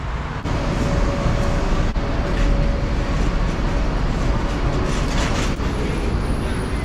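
Steady, loud rumble of vehicle noise.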